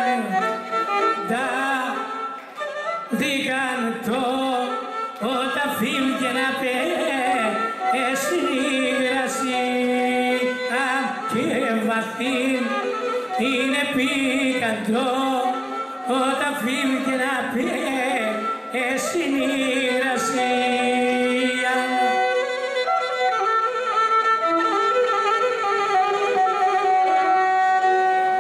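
Pontic Greek song performed live: a man singing over a Pontic lyra (kemenche) playing its bowed melody. Near the end the voice stops and the lyra plays on alone.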